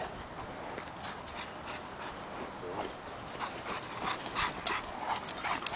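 A St Bernard and an Airedale terrier playing rough together over a ball: short scuffling sounds and small dog noises, getting busier in the second half.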